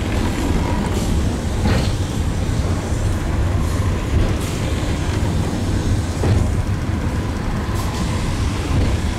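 Eizan Cable funicular car running uphill on its track, a steady low rumble heard from inside the car, with a few sharp clicks along the way.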